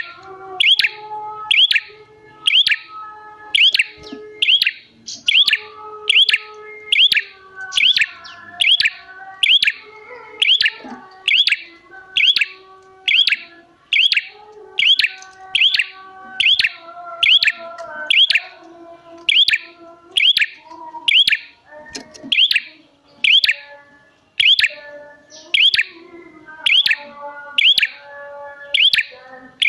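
Prenjak (prinia) calling busily: a loud, sharp, high chirp repeated evenly about once every three quarters of a second, each note a quick sweep in pitch, over softer, lower held notes.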